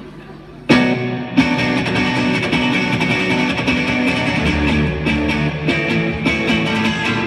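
A rock band playing live through a concert hall PA: electric guitars, bass and drums come in together with a sudden loud start about a second in and carry on playing.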